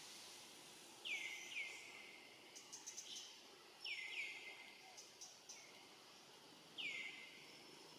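A bird calling: short chirps that fall sharply in pitch, twice as a quick pair and once singly near the end, with faint high ticks in between over a quiet outdoor background.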